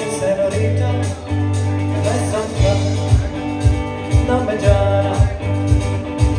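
Live band playing: a man singing into a microphone over electric guitar and drums, with a steady drum beat coming in about two and a half seconds in.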